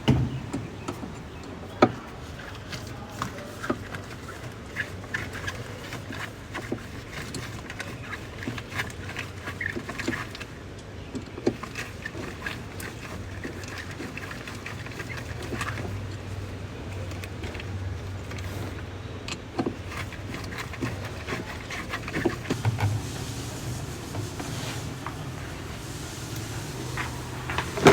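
Scattered clicks, taps and knocks of parts being handled while working on a washing machine, over a low steady hum.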